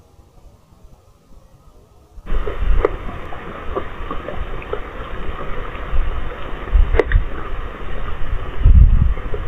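Heavy rain through a CCTV camera's microphone: a loud, steady hiss with a low rumble and occasional sharp clicks of drops. It starts abruptly about two seconds in, after a faint quiet hiss.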